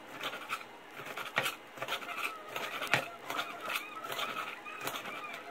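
A kitchen knife chopping a rolled bundle of collard green leaves on a cutting board: repeated crisp strikes, about two to three a second.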